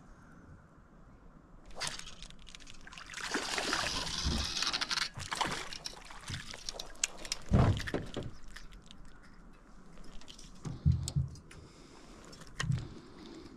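A hooked crappie splashing and thrashing at the water's surface as it is pulled up to the boat, followed by a few short, dull thumps.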